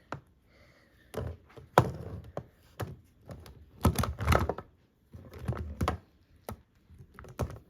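Hard plastic action figures being handled, with a series of irregular clacks and knocks as toys are set down and picked up on a hard surface.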